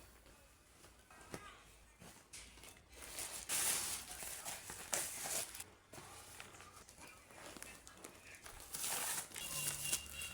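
Crinkling and rustling of something being handled, in a few short bursts, the loudest about three and a half seconds in and again near nine seconds.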